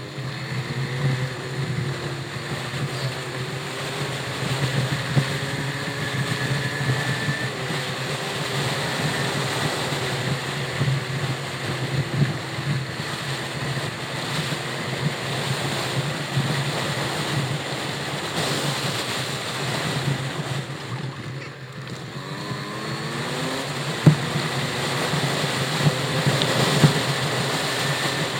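An engine running steadily, its pitch wandering slowly up and down, under a continuous rush of wind and movement noise. A single sharp knock comes about three-quarters of the way through.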